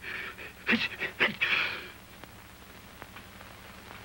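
A man's sharp, breathy gasps, the 'ah… ah…' wind-up of a sneeze that does not come, over the first two seconds. After that only a low steady hum with occasional faint clicks.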